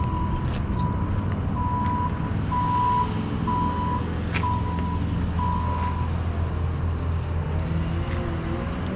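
A heavy vehicle's engine running steadily while its reversing alarm beeps about once a second. The beeping stops about six seconds in and the engine keeps running.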